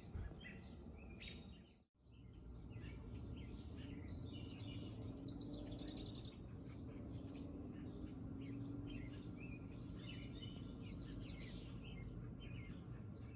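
Several wild birds chirping and singing over a steady low rumble of outdoor background noise, with a faint low hum in the middle stretch. The sound cuts out briefly about two seconds in.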